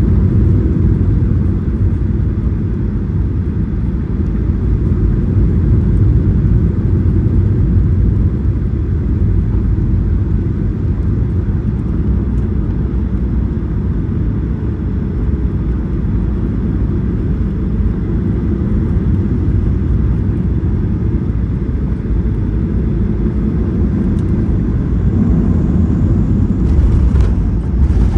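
Jet airliner cabin noise during the landing: a steady low rumble of engines and airflow, with a brief louder jolt near the end.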